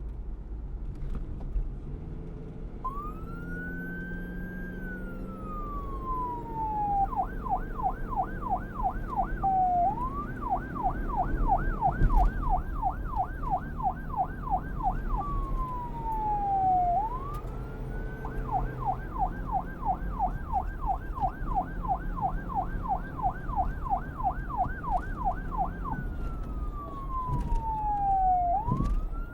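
Police car siren, starting about three seconds in and switching back and forth between a slow rising-and-falling wail and a fast yelp of about three sweeps a second, over a steady low rumble. A single sharp knock comes about twelve seconds in.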